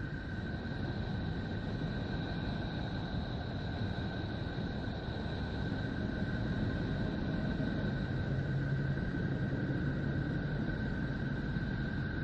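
A space recording converted to sound, a 'planet sound': a steady low rumbling hiss with two thin high tones held above it, slowly getting louder.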